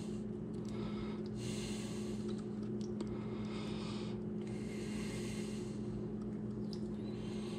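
A steady low electrical hum, with a man breathing slowly close to the microphone, two long breaths, while his fingers peel the skin off a raw octopus head, giving faint small clicks.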